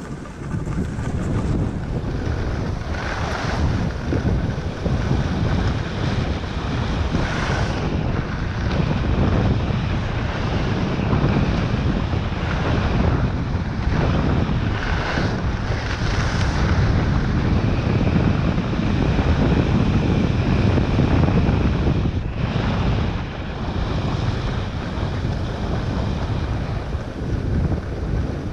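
Heavy wind rumbling on the microphone as a skier descends a groomed trail, with the hiss of skis on packed snow swelling every few seconds at the turns.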